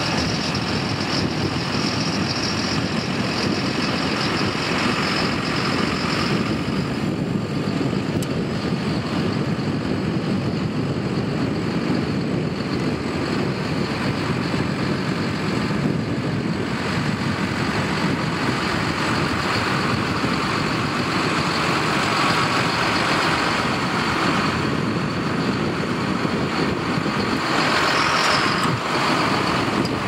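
John Deere tractor engine running steadily under load as it pulls a reversible mounted plough through wheat stubble. It grows louder near the end as the tractor comes close.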